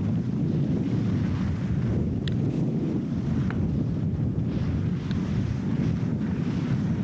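Wind buffeting a camcorder microphone as it moves down a ski slope: a steady low rumble, with a few faint short ticks in the middle.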